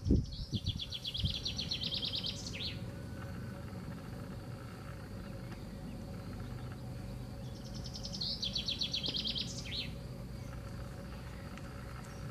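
A songbird sings twice, each song a fast trill of repeated high notes lasting about two seconds and ending in a quick flourish, over a steady low rumble.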